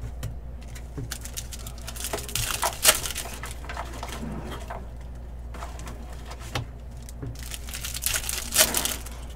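Trading-card pack wrappers crinkling and tearing and cards being handled, in short rustling bursts about two to three seconds in and again near the end, with a few small clicks between.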